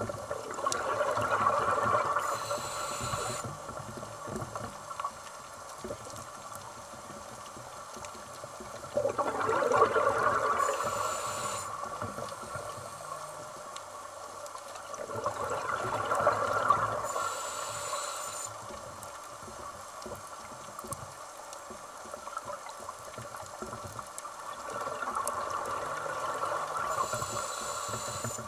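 Scuba diver's own breathing through a regulator, heard underwater: four slow breath cycles, each a swelling rush of exhaled bubbles followed by a short, slightly whistling hiss of the next inhale through the regulator.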